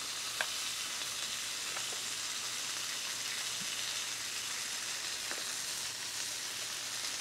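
Thin-shaved ribeye sizzling steadily in olive oil on a hot Blackstone flat-top griddle, with a few faint crackles.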